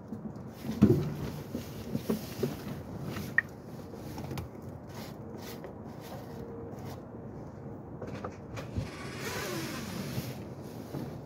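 Scattered clicks and knocks of hand work in a car's engine bay, the loudest about a second in, followed by a brief hiss near the end.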